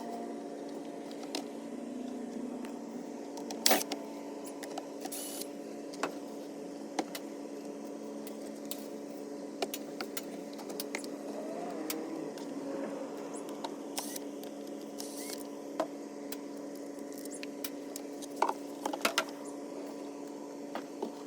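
Plastic swamp cooler being taken apart by hand: scattered clicks, knocks and short scrapes of panels and fasteners, loudest about four seconds in and again near the end, over a steady low hum.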